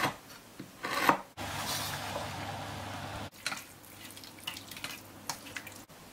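A quick succession of kitchen sounds: a knife cutting twice on a cutting board, then a couple of seconds of steady hiss, then scattered light clicks and wet sounds as cappellini is tossed in a steel pot.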